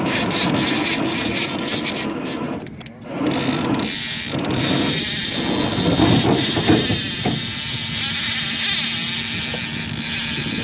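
Steady rushing noise of wind and water aboard an open boat on a river, with a faint low hum underneath and a brief lull about three seconds in.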